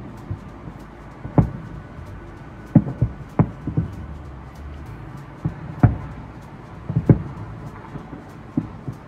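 Fireworks shells bursting: about ten irregular booms over nine seconds, some coming in quick pairs.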